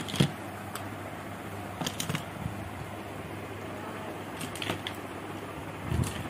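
Scattered light plastic clicks and knocks as Beyblade spinning tops and their launchers are picked up and set down in a plastic stadium, a few spaced seconds apart, over a steady low room hum.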